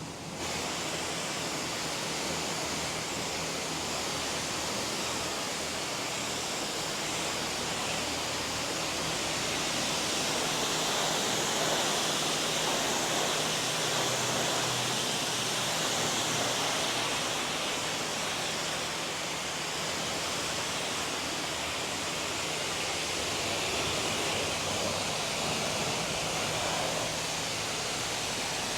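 Steady hiss of water spraying onto a car during a rinse.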